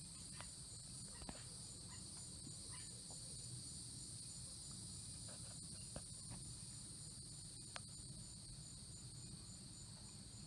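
Steady high-pitched insect chorus, a faint pulsing trill, with a couple of faint clicks about halfway through.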